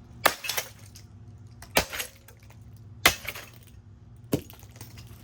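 Four hard blows on a rusted, rotten Harbor Breeze C42 five-blade ceiling fan, roughly one every second and a half. Each impact is followed by a brief clinking rattle of loose metal parts.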